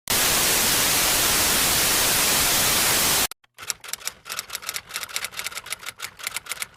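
Steady TV-static hiss that cuts off about three seconds in, followed by typing: quick, irregular key clicks, several a second.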